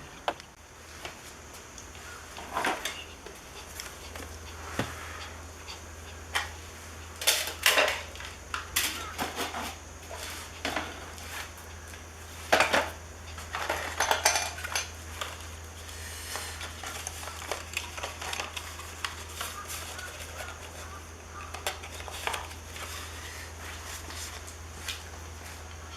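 Irregular clicks, clinks and clatter of small hard parts and tools being handled, busiest in the middle, over a steady low hum.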